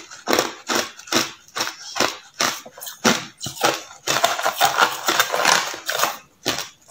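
Hard clear ice crunching between the teeth, loud crunches about two or three times a second, running into a denser stretch of crunching from about four seconds in.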